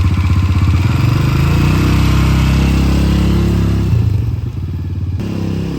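A small engine, started just before, running with its pitch rising and falling, then easing to a quieter, lower run about four seconds in.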